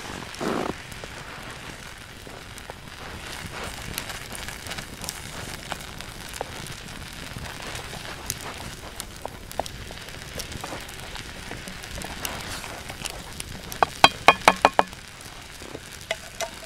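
Noodle soup simmering in a black cast-iron pan set on campfire embers, a steady hiss with scattered wood crackles. About fourteen seconds in, a quick run of sharp clicks.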